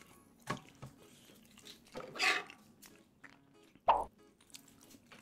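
Plastic sauce sachet being handled with a few light clicks and a soft rustle, then a sharp snip about four seconds in as scissors cut it open.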